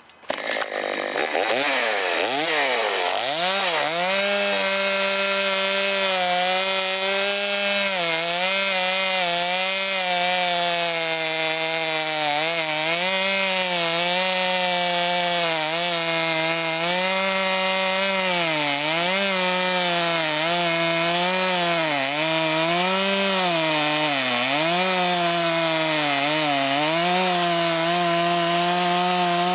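Vintage Stihl two-stroke chainsaw cutting wood. It revs up over the first few seconds, then runs at high speed through the cut, its pitch dipping again and again as the chain loads up in the log.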